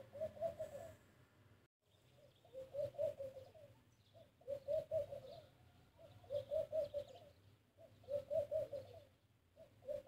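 A dove cooing: a low, pulsing coo phrase about a second long, repeated six times at roughly two-second intervals.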